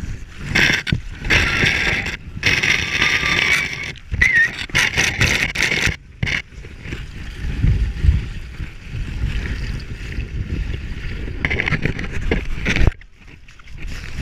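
Water rushing and sloshing against a camera that slides down a wet inflatable vinyl water slide, loud and uneven. The sound drops off suddenly near the end.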